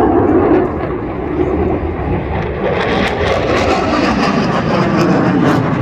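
Jet fighter making a low pass, its engine noise loud and steady, turning harsher and hissier about three seconds in as it comes overhead.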